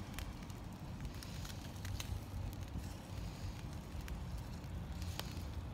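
Wood campfire crackling, with scattered small pops over a steady low rumble.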